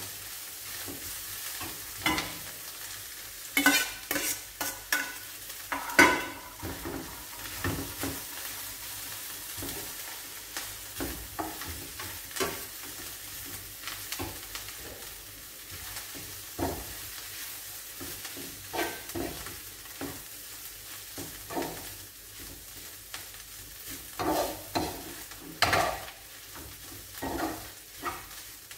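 Ground chicken and onion sizzling in a nonstick frying pan, stirred with a spatula that scrapes and knocks against the pan at irregular intervals, with louder clusters of knocks about four to six seconds in and again near the end.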